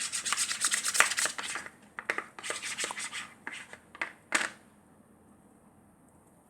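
Homemade glue slime being handled and stretched, giving a dense run of sticky crackling clicks that thins out into scattered clicks and stops about four and a half seconds in.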